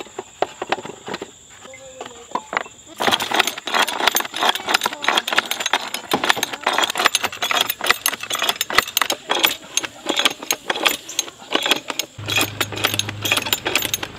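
Ratchet head of a Weston wooden-basket fruit press clicking rapidly and irregularly as its handle is worked back and forth, screwing the press plate down onto crushed apples. The clicking starts about three seconds in.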